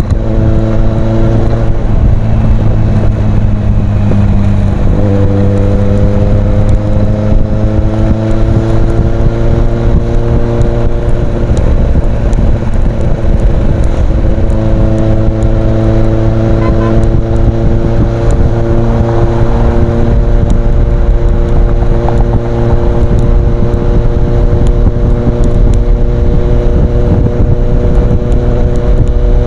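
Kawasaki Z800's inline-four engine running through an Ixil aftermarket exhaust, its note mostly steady, dipping and climbing a little in pitch about five seconds in and again around the middle.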